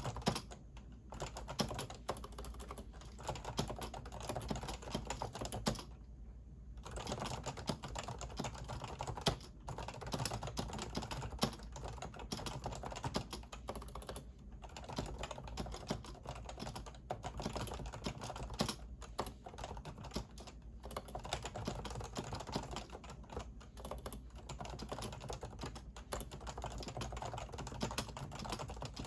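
Typing on a Topre Realforce keyboard with electrostatic capacitive key switches: a rapid, continuous stream of keystrokes, broken by short pauses about a second in and again around six seconds in.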